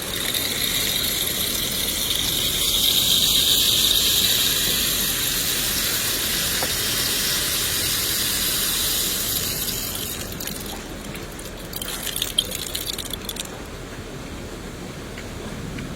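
Rain hissing steadily, heavier from the start for about ten seconds, then easing off. A patch of crackly pattering follows near the end.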